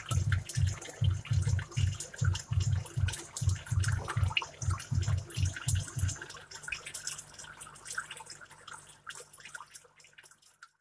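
Aquarium air stone bubbling, with a fizzing crackle of bubbles breaking the water's surface, over a low pulsing throb of about two to three beats a second that settles into a steady low hum about six seconds in. The sound fades out near the end.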